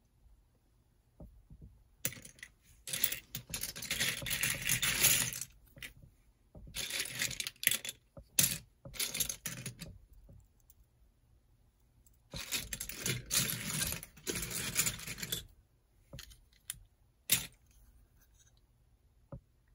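LEGO pieces rattling as sets are handled, in three bursts of small hard plastic pieces clattering, with a few single clicks between them.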